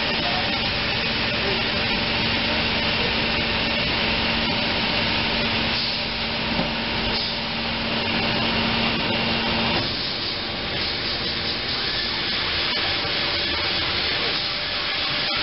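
Steady machinery noise from a hall of running motorcycle tire curing presses, with a steady hum that stops about ten seconds in.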